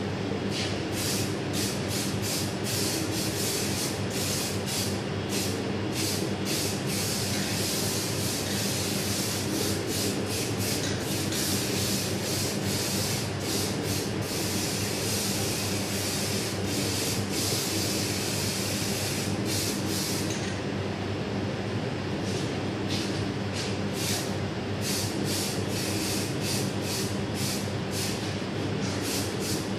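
Aerosol spray can hissing in many short bursts, with a longer run of hissing in the middle, over a steady machine hum.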